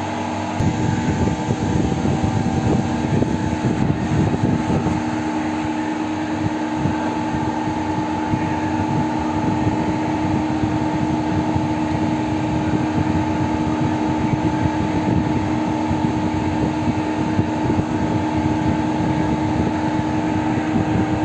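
CNC lathe running: a steady machine hum with a couple of held tones, joined about half a second in by a rougher, noisier sound that carries on to the end.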